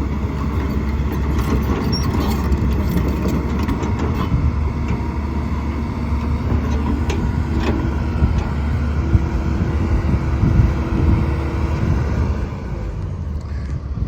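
Kobelco SK210LC-10 hydraulic excavator running with a steady low diesel drone. It grows a little louder partway through, then eases near the end.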